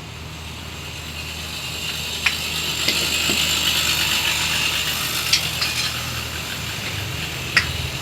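A steady machine hum under a hissing noise that builds over the first few seconds and then slowly eases, with a few light clicks.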